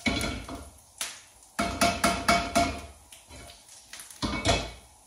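Cumin seeds popping in hot oil in a frying pan: sharp, irregular pops, with a quick run of them about two seconds in. The popping is the sign that the seeds are cooked and the oil is flavoured and hot enough for the onions to go in.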